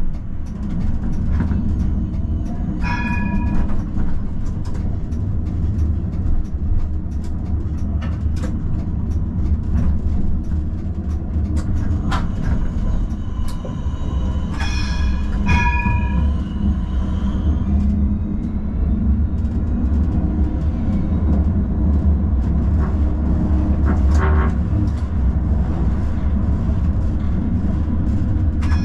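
Tram running along the rails with a steady low rumble from its motors and wheels, and scattered sharp clicks over rail joints. Short ringing tones sound about three seconds in, twice around halfway, and again at the very end.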